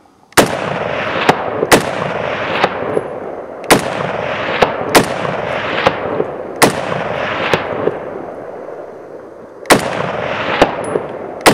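Century Arms R1A1 Sporter, a .308 semi-automatic FN FAL–pattern rifle, fired about seven times at an uneven pace, a shot every one to three seconds. Each report trails off in a long echo, with a fainter crack about a second after it.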